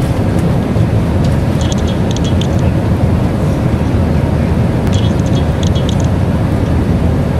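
Airliner cabin noise in flight: a steady low roar of engines and airflow. Two short bursts of light, high rattling come about a second and a half in and again about five seconds in.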